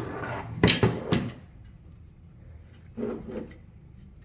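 Handling noise from a paper cutter dispenser tool being worked by hand: a quick run of clacks and knocks from its parts about half a second to a second in, then a softer couple of knocks about three seconds in.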